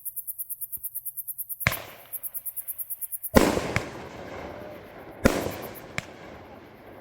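A 200-gram big-bore consumer fireworks cake firing its shots. Sharp reports come under two seconds in and again at about halfway, and twice more near the end, each trailing off. Before the first shot there is a fast, even high-pitched pulsing of about eight a second.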